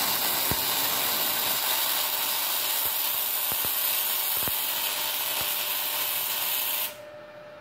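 Gasless flux-core MIG welding arc crackling and hissing steadily with the welder at its maximum current, then stopping abruptly near the end as the bead is finished.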